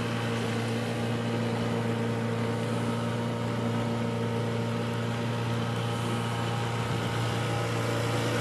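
Small outboard motor pushing a sailboat at a steady cruising speed: an even, unchanging drone.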